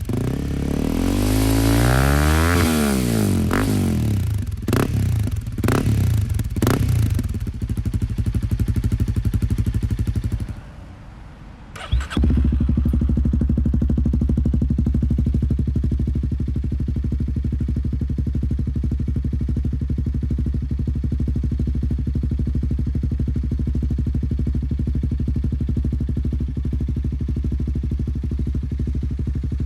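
Honda CL300 single-cylinder engine through a Yoshimura exhaust, revved up and down, then blipped sharply three times before settling. The sound drops away briefly, then the bike is running again at a steady idle.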